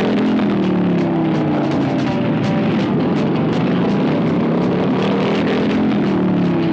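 A pack of chopper motorcycles riding past at speed, the engine note dropping in pitch as bikes sweep by close, twice: once at the start and again near the end.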